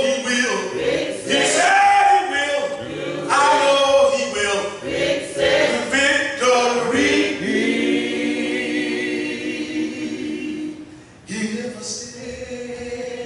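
Unaccompanied gospel singing: a man leads the song, and other voices sing with him. There is a long held note in the middle, then a short drop before the singing picks up again.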